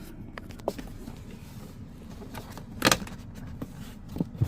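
Handling noises from plastic car interior trim: a few light clicks and a short, louder rattling clatter just before three seconds in.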